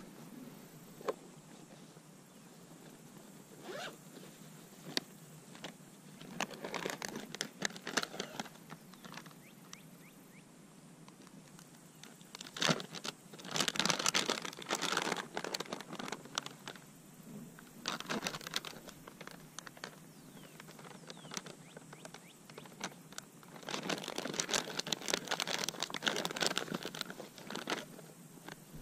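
A zipper and the rustle and crinkle of nylon fabric and plastic as hands rummage in a pack on a float tube, coming in several bursts with quieter gaps between.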